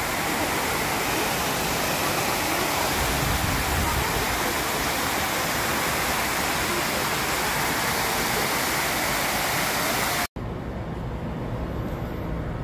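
Water falling down a cascade fountain's walls, a steady rushing hiss. It cuts off abruptly about ten seconds in, leaving quieter outdoor background noise.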